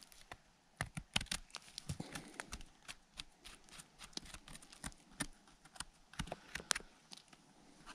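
Knife blade scraping and trimming dirt and forest litter off the base of a mushroom stem: a run of quick, irregular clicks and short scrapes close to the microphone.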